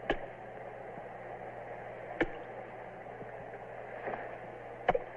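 Steady low hiss with a faint hum, broken by three short sharp clicks or knocks: one near the start, one about two seconds in and one near the end.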